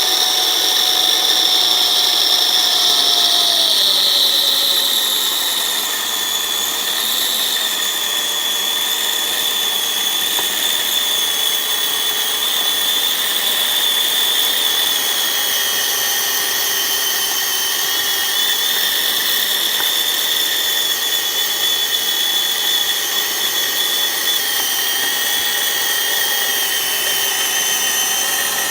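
Twin 550-size electric motors of a 3D-printed RC snow blower running steadily with a high whine as they spin its twin impellers. About four seconds in, the pitch drops and settles lower, and the level dips slightly.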